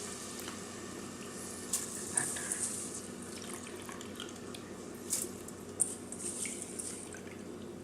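Wet rice being handled by hand in a bowl of water, with intermittent splashes and trickling. A steady low hum runs underneath.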